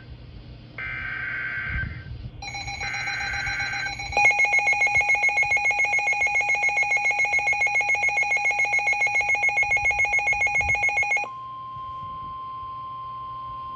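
Emergency Alert System header and alert tones: two short bursts of warbling digital data noise, then a loud, rapidly pulsing alert tone for about seven seconds, then a steady single-pitch tone. The sequence signals that a new warning, here a tornado warning, is about to be read.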